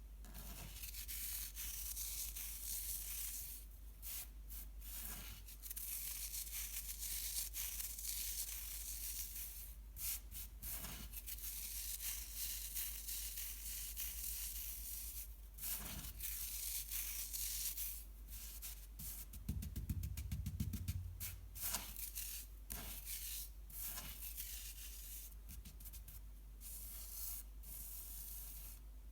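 Chocolate balls being crushed: a crisp crackling and rustling that comes in runs with short pauses, with a few heavier thumps about twenty seconds in. A steady low hum runs underneath.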